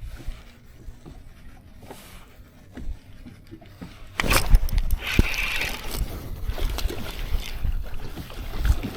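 Light knocks aboard a fishing boat. About four seconds in, a sudden loud rush of splashing and thumping starts, as a hooked spotted bass thrashes at the surface and is brought aboard.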